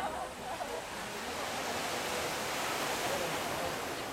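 Steady rushing noise of sea waves washing on a rocky shore.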